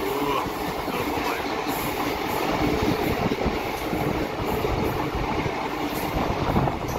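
Indian Railways passenger train running steadily, its wheels running on the rails, heard from right alongside the moving coach.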